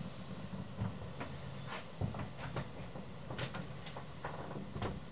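Quiet scattered knocks and clicks over a low steady hum: handling and footfall noise as someone moves about the wood-panelled cabin of a motor cruiser with a handheld camera.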